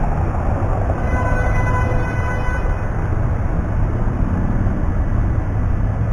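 Rumble of city street traffic, with a vehicle horn sounding one steady note from about a second in, lasting under two seconds.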